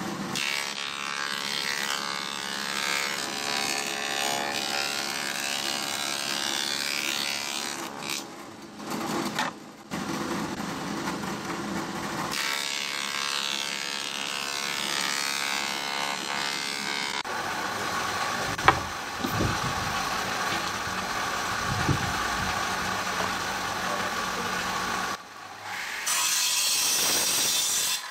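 Thickness planer cutting a pine board as it is fed through: two long passes of cutting noise, the second starting about four seconds after the first ends. Between and after them the machine runs with a lower sound and one sharp click. Near the end a miter saw cuts briefly, louder and higher-pitched.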